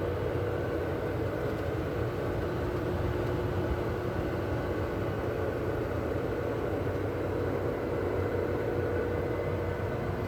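Steady drone of a running farm machine's engine, with a constant whine over a low rumble.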